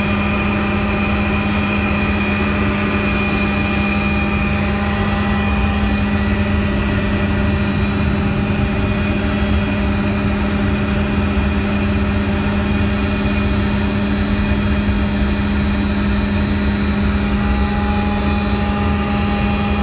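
A helicopter running steadily in flight: engine and rotor noise with a strong, unchanging hum.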